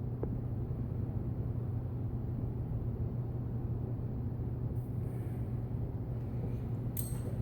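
A steady low hum, with a brief high rustle or clink near the end.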